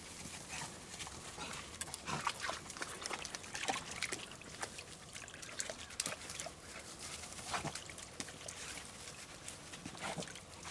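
Beagles snuffling and rustling through dry brush and leaves close by, with scattered crackles of twigs, as they cast about for the rabbit's lost track.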